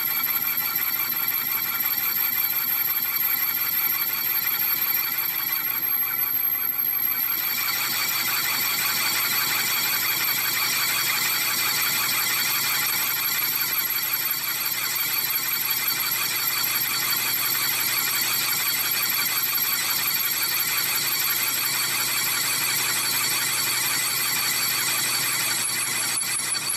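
Lathe cutting tool squealing against a large spinning steel clutch part: a steady, high-pitched ringing chatter made of several fixed tones. The high tones grow stronger about seven seconds in.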